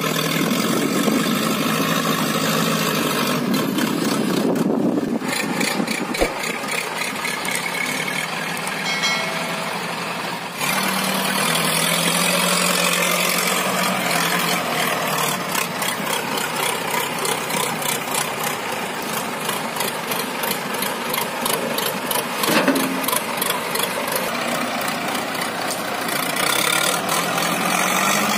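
Diesel engines of a backhoe loader and a Mahindra Arjun Ultra-1 605 DI tractor running, the loader working its bucket to load soil into the tractor's trolley. The engine sound changes abruptly about four and ten seconds in.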